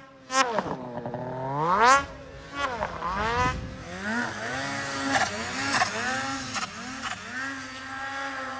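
Two-stroke snowmobile engine revved hard, its pitch climbing steeply to a loud peak about two seconds in and dropping away, then a run of quick throttle blips, each a short rise and fall, as the sled is worked through deep powder.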